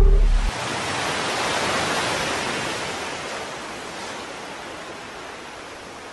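A rushing hiss of noise, a title-sequence sound effect. A deep rumble under it cuts off about half a second in, and the hiss then fades slowly away.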